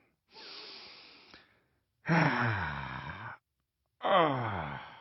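A man making exaggerated wordless 'dad noises': a long breathy exhale, then two loud groaning sighs, each falling in pitch.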